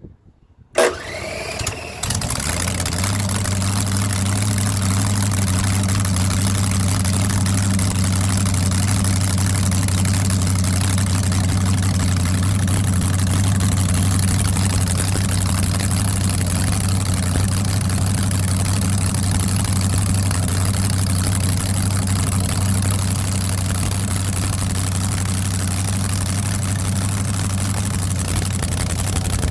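An engine being started: a sharp click, a second or so of cranking with a rising starter whine, then it catches about two seconds in and runs at a steady idle.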